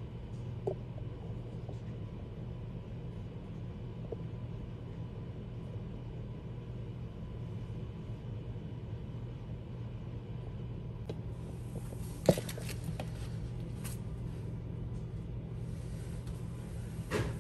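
A steady low hum, with one sharp knock about twelve seconds in. Near the end comes a brief crinkle and clatter as a disposable aluminium foil pan is picked up.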